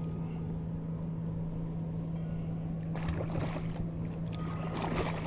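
Hooked striped bass splashing at the surface beside a kayak. There are short bursts of splashing about three seconds in and again near the end, over a steady low hum.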